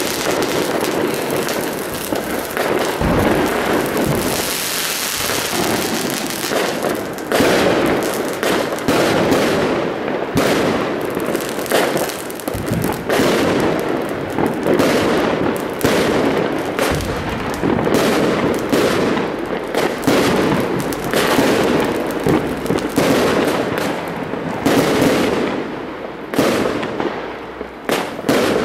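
New Year's fireworks going off in a dense barrage: many bangs and crackles overlapping without a break, with rockets rising and bursting.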